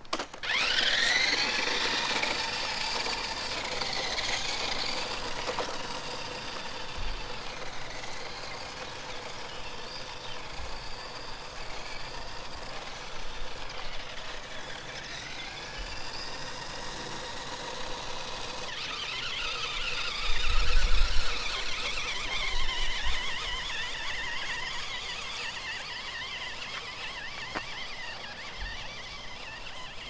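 Electric drive motor and gearbox of a DEERC DE69 toy four-wheel-drive RC truck whining as it drives, rising sharply in pitch as it takes off at the start, then shifting up and down as it speeds up and slows. A loud low rumble comes about twenty seconds in.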